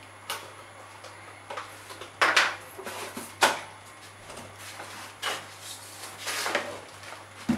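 Irregular knocks and clatter of objects being handled and set down, the loudest about two and three and a half seconds in, over a steady low hum.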